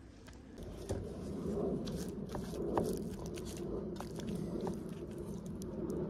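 Close-up eating sounds: bread and fried sucuk with eggs being bitten and chewed, with crunching and many small clicks, starting about half a second in.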